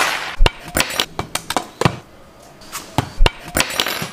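A quick rush of noise, then a run of about nine sharp knocks and clinks at uneven intervals.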